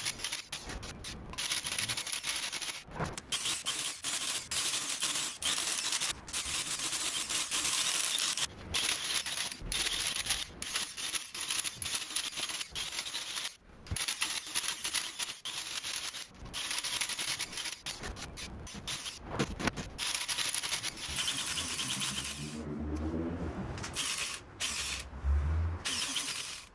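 Handheld electric tufting gun running in bursts with short pauses, its needle rapidly punching yarn through the backing cloth.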